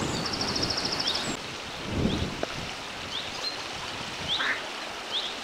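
Mallard ducklings peeping, short high falling notes every second or so, over a steady outdoor hiss of wind and water. A quick run of rapid high notes comes in the first second.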